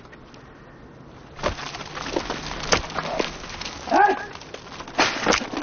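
A horse fighting a lead rope and rearing: several sharp knocks and cracks, with a short animal call about four seconds in.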